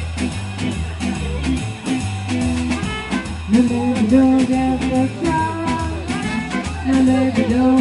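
A small band playing an upbeat swing tune on upright double bass, electric guitar and trumpet, over an even, driving rhythm. A held lead melody line comes in about three and a half seconds in.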